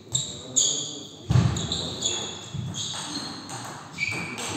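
Sports shoes squeaking on a hall floor, a handful of short squeaks, with one dull thump about a second and a half in.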